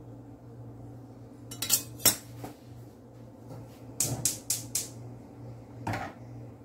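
Kitchenware clattering as a pot and utensils are handled: sharp metallic clinks and knocks, a couple about 2 s in, a quick run of four about 4 s in and one more near 6 s, over a steady low hum.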